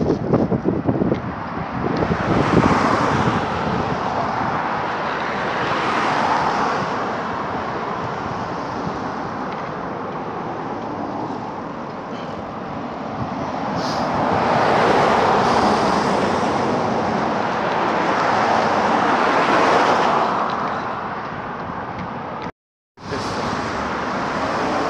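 Road traffic heard from a bicycle on the roadside: several cars pass one after another, their engine and tyre noise swelling and fading, with wind buffeting the microphone at the start. The sound cuts out briefly near the end.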